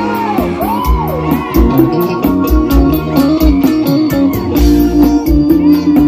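Live band music with a steady beat and sustained keyboard-like chords. A voice swoops up and down over it in the first couple of seconds.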